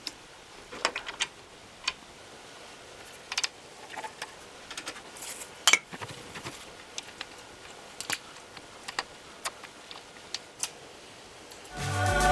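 Small metallic clicks, taps and scrapes from pliers and a clamp being worked on a metal tube, with one louder knock a little past halfway. Music comes in near the end.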